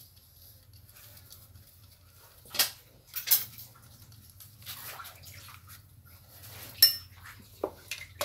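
Metal parts clinking and knocking as a sprayer pump is fitted onto a small engine's mount: several short sharp clicks, the loudest about two and a half seconds in and again near seven seconds, over a faint low hum.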